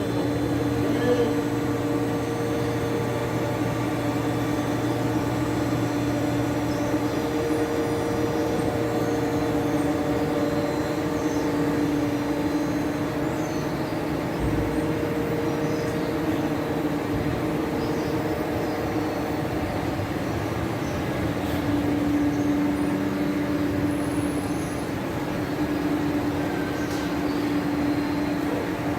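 Slideway grinder running steadily: a constant machine hum with a steady tone over mechanical noise.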